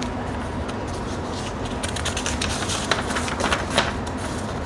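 Glossy paper rustling and crackling as a folded printed leaflet is picked up and opened by hand, with a run of sharper crackles about three to four seconds in.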